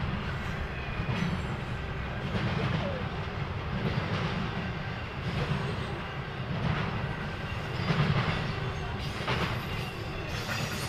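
Freight train cars rolling past, their wheels clacking over the rail joints in a regular beat a little over a second apart over a steady rumble.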